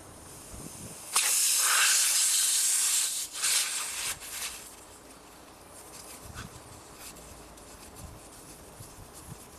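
Air hissing out of a car tyre's open valve stem as the valve core is reinserted: one loud hiss of about two seconds, then a few shorter spurts that die away. The escaping air helps clear sealant out of the valve.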